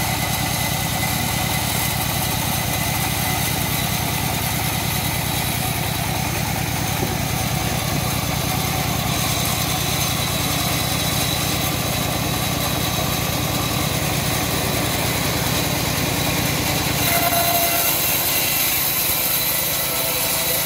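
Homemade band sawmill running, its stationary engine running steadily with an even low pulse while the band blade cuts through a log. A little over three-quarters of the way through, the low engine sound drops and a higher hiss comes up.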